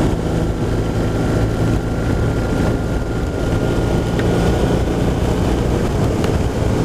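BMW R1200RT boxer-twin engine running at a steady cruise, with wind rushing past and road noise on a wet road.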